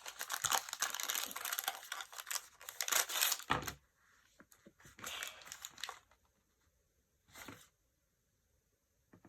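A small accessory packet being torn open and crinkled, with dense crackling for about three and a half seconds that ends in a dull thump, followed by two shorter rustles and then quiet.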